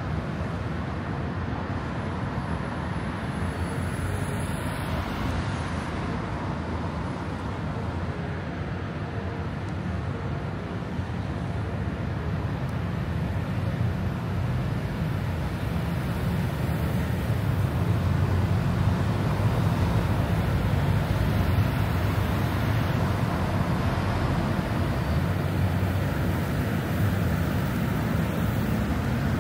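City road traffic: a steady low rumble of cars and buses passing on a nearby street, growing a little louder about halfway through.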